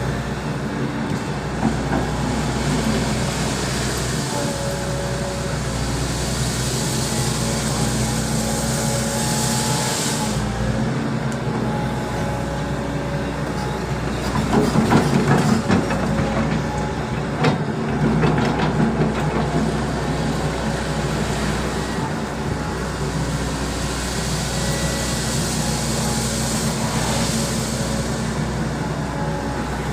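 Volvo EC200D excavator running steadily. About halfway through it gets louder, with a stretch of clattering knocks.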